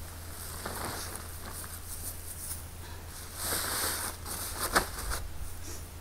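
Plastic tarp crinkling and loose potting soil spilling as a grow bag is lifted off a turned-out pile, in a few short bursts, the loudest a sharp crackle about five seconds in.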